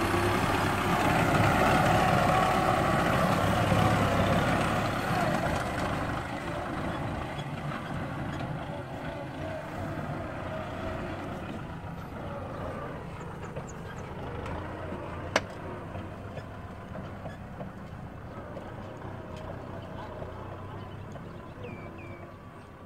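Kubota M6040 tractor's diesel engine running, loud at first and then fading steadily as the tractor drives away. A single sharp click about two-thirds of the way through.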